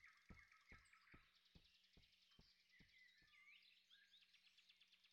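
Very faint forest ambience: birds chirping and a fast insect-like trill. Soft short knocks come about twice a second and stop about three seconds in.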